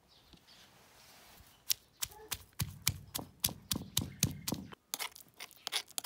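Stone pestle pounding fried onions, coriander and garlic in a marble mortar: a run of sharp knocks with a dull thud under each, about three or four a second, starting about two seconds in. Near the end it turns into rougher grinding and scraping as the mix is crushed to a paste.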